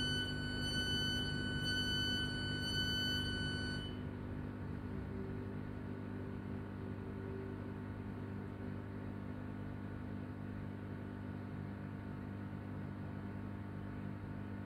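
A high, steady electronic door-warning tone on a Class 323 electric train, pulsing faintly about once a second, stops about four seconds in. Under it and after it, the train's equipment keeps up a steady low hum while it stands at the platform.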